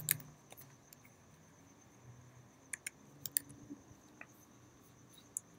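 Scattered single keystrokes on a computer keyboard, typing a short search term, over a faint steady high-pitched tone.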